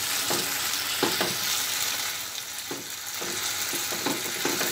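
Marinated chicken breast pieces sizzling in oil in a nonstick frying pan over low-medium heat, with a steady hiss. A wooden spatula scrapes and knocks against the pan every second or so as the pieces are stirred.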